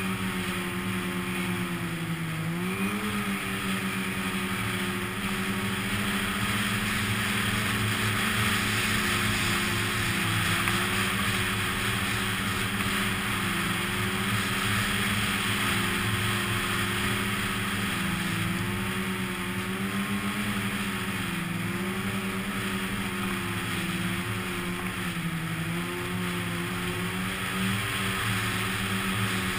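Snowmobile engine running steadily while riding along, its pitch dipping and rising a little several times with the throttle, over a steady hiss.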